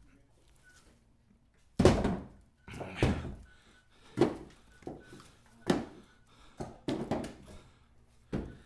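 Split ash firewood being unloaded and stacked by hand: a string of sharp wooden knocks as pieces strike one another, irregularly about once a second. The loudest comes a little under two seconds in.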